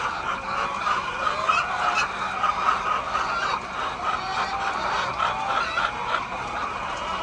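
A large flock of laying hens clucking and calling over one another in a dense, continuous chorus.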